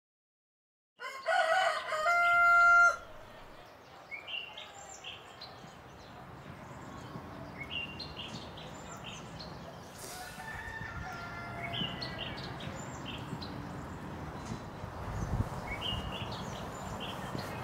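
A rooster crows once, loudly, about a second in, ending on a long held note. After it, birds keep chirping over a faint steady background.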